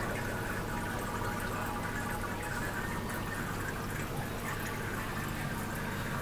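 Water circulating and bubbling steadily in a marine aquarium, over a steady low hum.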